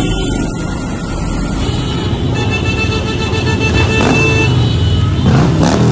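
Traffic noise from a slow car convoy: engines running in a steady low rumble, with one high, steady toot about halfway through.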